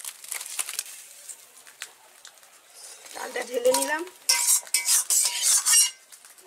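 Metal spatula scraping and clanking against a metal cooking pan, with hot oil sizzling. The scraping is loudest in a dense run from about four to six seconds in.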